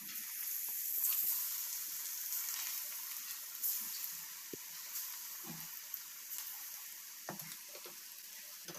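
Chana dal vada batter deep-frying in hot oil, a steady sizzling hiss with scattered crackling pops.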